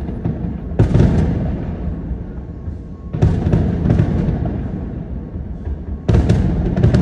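Aerial firework shells bursting: three heavy booms, about a second in, a little after three seconds and about six seconds in, each dying away in a low rumble.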